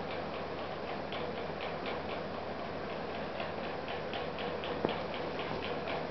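Steady, rapid ticking, about four ticks a second, over a constant background hiss, with one sharper click about five seconds in.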